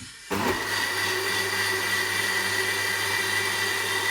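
Panasonic countertop blender motor switching on about a third of a second in and running steadily at speed with a high whine, blending a mango shake.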